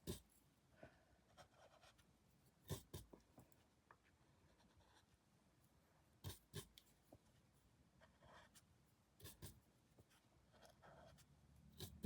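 Faint scratching strokes of a paintbrush working over a rough, rock-textured canvas, with a few sharp light taps about every three seconds, as paint is lifted back off.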